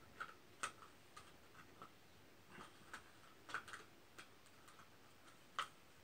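Light clicks and taps of a wire bird cage's metal parts being handled and fitted together: a handful of sharp, irregularly spaced clicks among fainter ticks.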